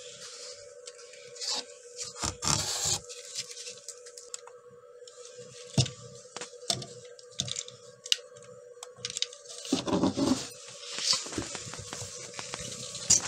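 Handling noise of scrapes, rustles and sharp taps as the camera is moved in among cardboard, over a steady hum. There is a longer scuffle about ten seconds in.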